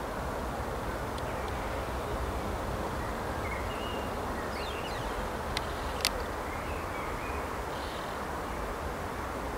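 Steady outdoor background noise with a few faint high chirps about halfway through and two sharp clicks a little past the middle.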